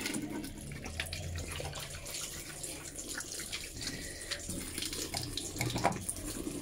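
Water running from a tap into a sink basin, with splashes as cupped hands scoop water up to wash the face, most clearly near the end.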